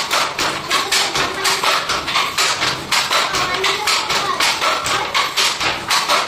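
Wooden fly-shuttle handloom clacking in a quick, steady rhythm, about three or four knocks a second, as the shuttle is thrown by its cord and the beater is pulled against the cloth.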